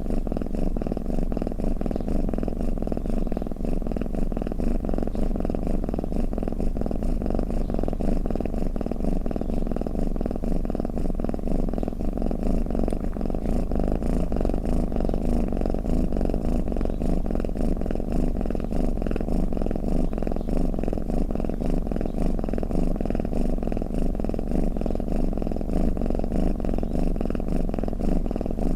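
Domestic cat purring, a continuous low rumble with a fine rapid flutter that holds steady without pause.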